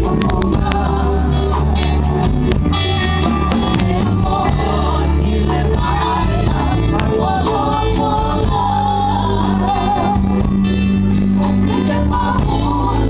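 A live band performing a gospel song: voices singing over a steady bass line and guitar, with beats.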